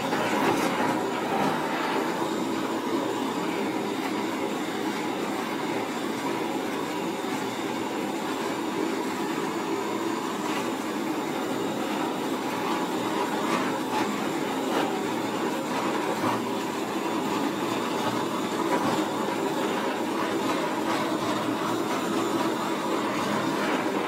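Hand-held gas torch burning with a steady rushing hiss as its flame plays over shaving foam, with a few faint crackles.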